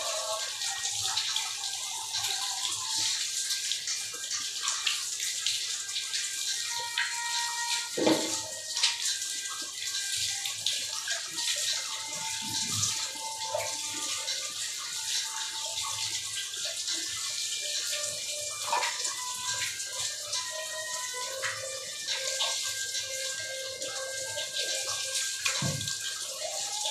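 Water running steadily from a tap and splashing, with a few knocks, the loudest about eight seconds in.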